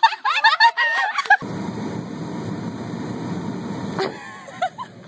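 High-pitched laughter for about a second and a half, then an abrupt change to a steady low rumble inside a car, with a sharp click about four seconds in.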